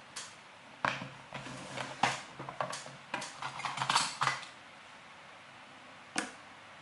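A quick run of metallic clicks and clinks, with one more near the end, as a padlock and small metal tools are handled on a hard surface.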